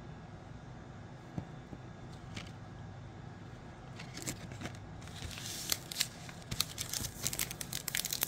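Faint steady room hum with a few light clicks of cards being handled. Then, about five seconds in, plastic packaging crinkling and rustling, getting busier toward the end.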